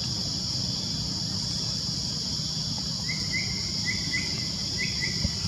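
Steady high-pitched drone of insects in the forest, with a quick run of about six short chirps starting about three seconds in.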